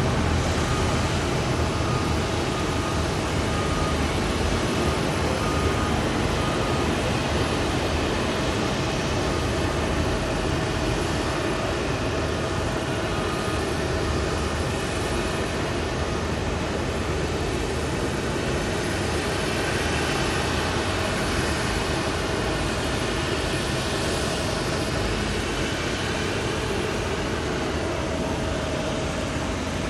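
Jet airliner engine noise, a steady rumble with a whine through it that shifts slightly in pitch about two-thirds of the way through.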